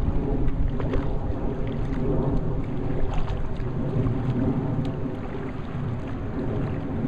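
Wind buffeting the microphone in a steady low rumble, with small splashes of water around a floating sailboard.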